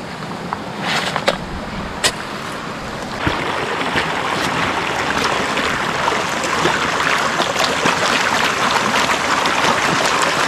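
A small shovel scraping into stony gravel, with a few sharp clicks of metal on rock. From about three seconds in, the steady rushing of a shallow brook with splashing and the gritty crackle of gravel as hands work a gold pan under the water.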